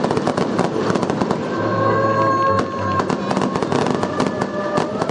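Fireworks bursting and crackling in rapid succession, many sharp reports a second. Held notes of choral music sound underneath.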